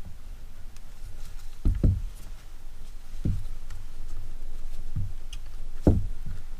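Handling noise of a drill strap being fitted onto a cordless impact drill: rubbing and several dull knocks, the loudest near the end.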